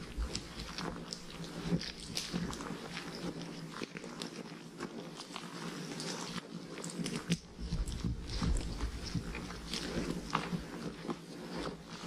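Pack goats chewing and tearing at plants close to the microphone: a steady run of crunching, crackling clicks.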